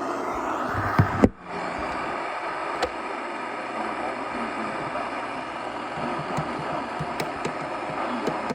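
Steady hiss of radio static from a receiver left on between broadcasts, with a sharp pop and a brief dropout about a second in.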